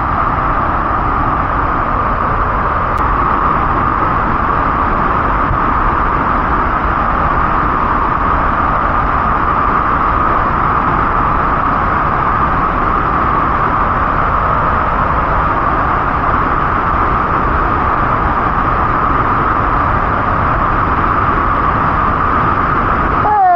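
Lumangwe Falls, a large waterfall in full flood at peak season, heard close up from near its base: a loud, steady roar of falling water that does not change.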